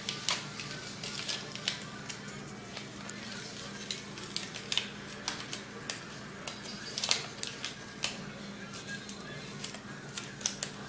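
Paper being handled and crinkled: irregular crackles and sharp little clicks, over a faint steady hum.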